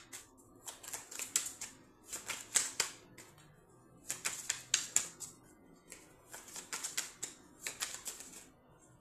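A deck of cards being shuffled by hand: about five bursts of rapid, crisp clicks, each lasting around a second, with short pauses between.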